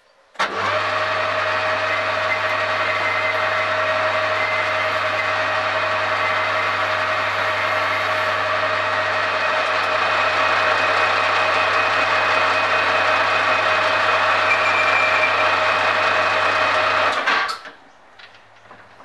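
Metal lathe running at steady speed with its four-jaw chuck spinning and a turning tool cutting a metal block: a steady motor hum with a few even whining notes. It starts abruptly and cuts off shortly before the end.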